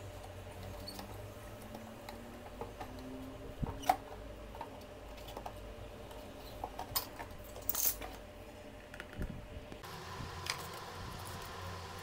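Scattered light clicks and taps of plastic being handled as a computer fan is fitted onto a plastic box lid, over a steady low hum.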